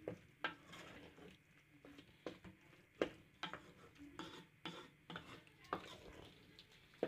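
A wooden spoon stirring leafy stew in a metal cooking pot, knocking against the pot in irregular taps, the loudest about three seconds in.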